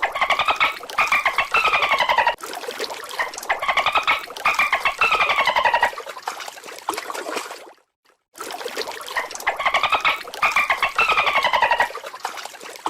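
An animal's repeated calls: bouts of rapid, pulsed notes that fall in pitch, heard twice with a short break in the middle.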